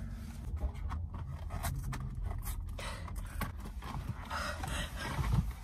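Rustling and scattered small clicks of handling as face masks and disposable gloves are pulled off inside a car cabin, over a low steady rumble.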